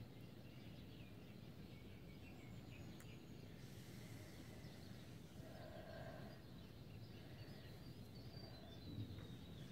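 Near silence outdoors: a steady low background rumble with faint, scattered bird chirps and calls, one slightly clearer call around the middle.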